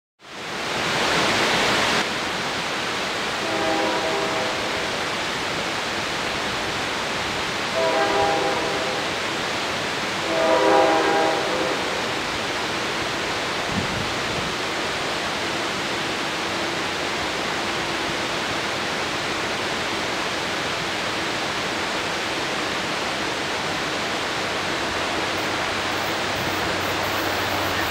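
Distant train horn sounding three times, each blast about a second long, over a steady rushing background noise. Near the end the low rumble of the approaching train begins to build.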